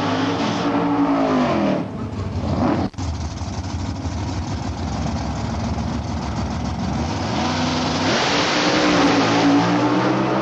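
Super stock drag cars' V8 engines: one is held at high revs and drops away about two seconds in, then a rough low rumble at the line, and from about eight seconds engines climb and run at full throttle as the cars launch down the strip.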